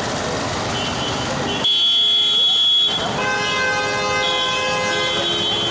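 Road vehicle horns honking in street traffic: a steady high beep about two seconds in, then a long, held honk from about three seconds in, over traffic noise.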